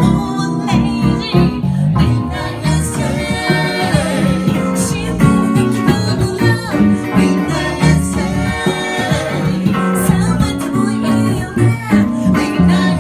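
A live band playing a song: a woman singing over guitars and keyboard.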